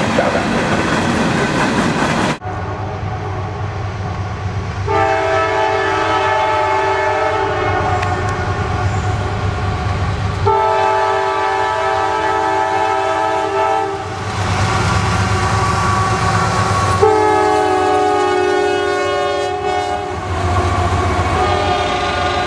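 A freight train's cars rumble past. Then a CSX AC6000CW diesel locomotive sounds its air horn in three long chord blasts as it approaches, and its train rumbles by near the end.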